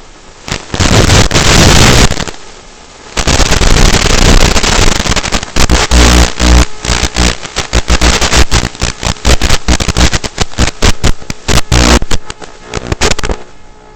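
Wind buffeting the onboard FPV camera's microphone in the cockpit of an RC model plane in strong wind, loud rushing and crackling noise. There is one gust about half a second in, then from about three seconds a long choppy run of bursts that stops about a second before the end.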